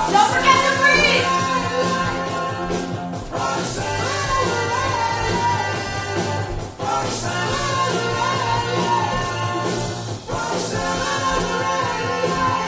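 Background music: a song with a sung vocal line over steady accompaniment, in phrases of about three and a half seconds.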